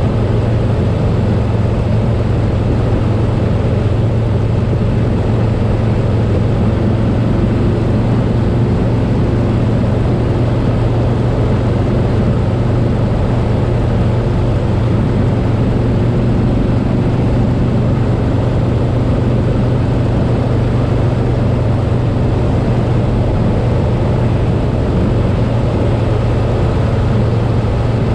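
Harley-Davidson Softail Slim's V-twin engine running steadily at highway cruising speed, with a steady low drone and a constant wash of wind and road noise.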